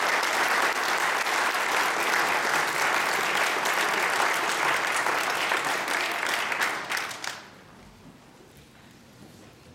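Audience applauding, the clapping dying away quickly about seven seconds in.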